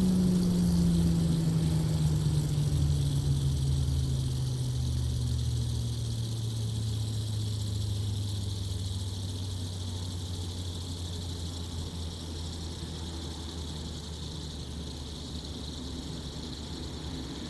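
Fidget spinner humming as it coasts down after a spin-up with compressed air: one steady tone that slowly falls in pitch and fades as the spinner loses speed.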